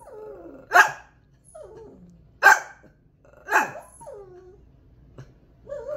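Small Chihuahua-type dog giving three sharp alert barks, with quieter wavering sounds in between, set off by being told a cat is outside.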